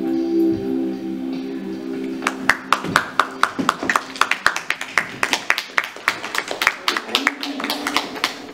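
Electric guitar: a held chord rings out and fades, then a run of sharp percussive clicks follows, about four to five a second, with a low note sounding again near the end.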